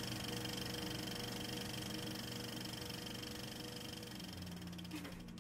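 A steady whirring hum over a hiss, slowly growing fainter, with a brief shift in pitch about five seconds in.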